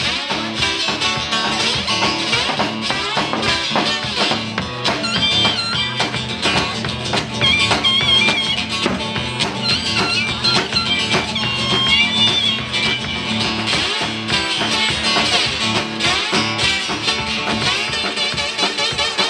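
Live acoustic guitar and drum kit playing an instrumental passage of a blues song: the guitar strums and picks lead notes over a steady drum beat.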